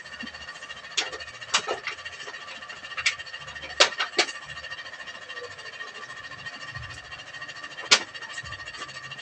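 A wooden pole jabbed into a smouldering straw pile, giving several sharp, irregular knocks and cracks; the loudest come about four seconds in and again near the end. A steady high drone runs underneath.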